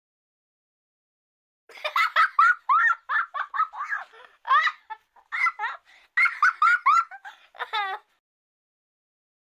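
A ticklish puppy giving a rapid run of short, high-pitched squeaky yips that sound like giggling, starting about two seconds in and stopping shortly before the end.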